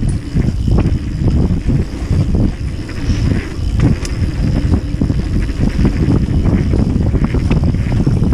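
Mountain bike descending a dirt trail at speed: wind rumbling on the microphone, with tyres rolling over the dirt and the bike rattling and knocking over bumps throughout.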